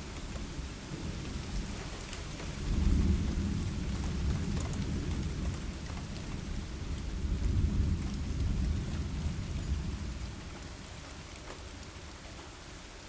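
Steady rain with a long rumble of thunder that starts about two and a half seconds in. The thunder swells twice and dies away after about ten seconds.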